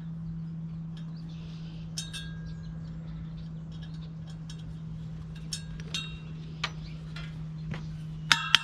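Light metallic clicks and clinks of a small hand tool working the set screw on a heater blower fan's hub, with ringing clinks about two seconds in and again near the end. A steady low hum runs underneath.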